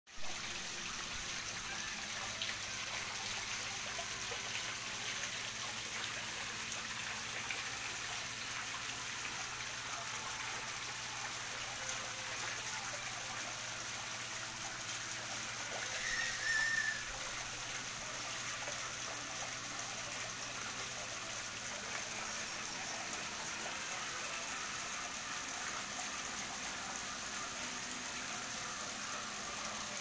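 Water trickling and splashing steadily as thin streams spill over a stacked-stone wall waterfall into a pond. A brief high sound stands out about halfway through.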